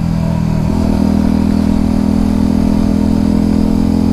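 Onboard sound of a dirt-style motorcycle's engine running while riding in traffic, a steady engine note that picks up slightly about a second in as the throttle opens, with a light rush of wind.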